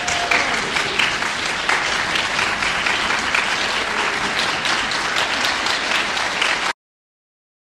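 Concert audience applauding steadily, many hands clapping at once; it cuts off suddenly near the end.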